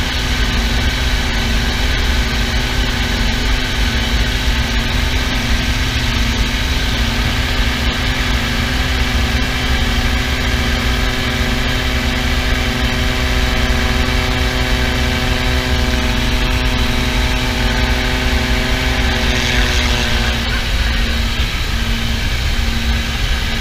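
Light plane's piston engine and propeller droning steadily, heard from inside the cabin, with a regular throb beneath it. Some of its tones shift slightly near the end.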